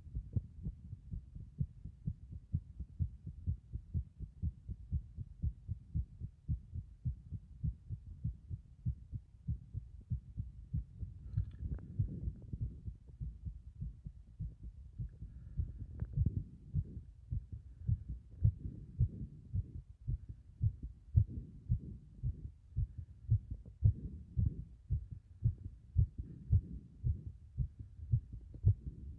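Human heartbeat, heard as close, regular low thuds of the heart of a person with a sunken chest (pectus excavatum).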